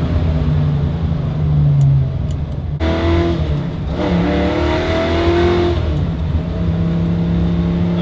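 1965 Ford Mustang's engine heard from inside the cabin, pulling hard under acceleration. About three seconds in the note drops away briefly, then climbs steadily and settles into a steady pitch near the end, during a run up to speed for bedding in new disc brakes.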